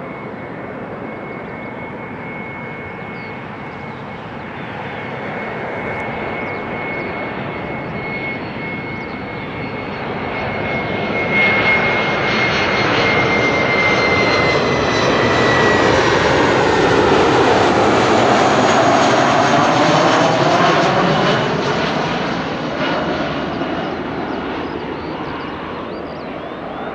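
Jet aircraft passing close by: a steady high engine whine drops in pitch about halfway through, while the engine noise swells to a peak and then fades away.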